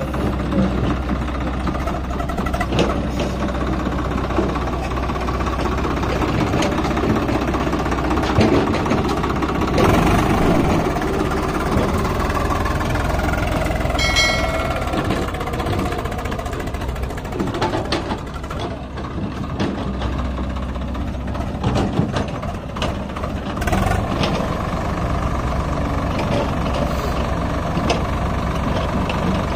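Swaraj 744 XT tractor's diesel engine running steadily under load as it pulls a sand-laden trolley up a soft dirt slope. A brief high-pitched tone sounds about halfway through.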